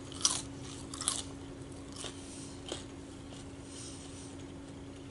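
A person chewing crunchy fried food close to the microphone, with a few sharp crunches in the first three seconds and quieter chewing after.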